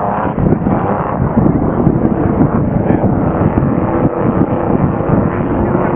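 Vintage racing hydroplanes running at speed out on the water, their engines a loud, continuous drone.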